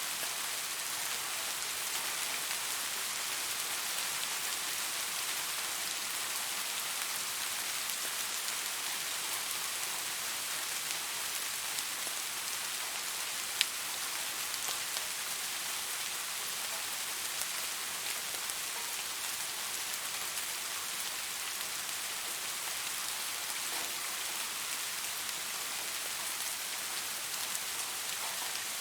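Steady rainfall: an even hiss of rain with individual drops ticking through it, and one sharper, louder drop tick about halfway through.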